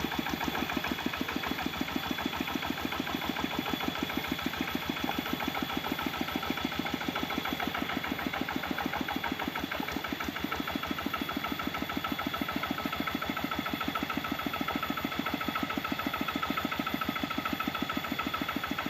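Kubota RD65 single-cylinder diesel engine of a hand tractor running steadily with an even, rapid chugging beat.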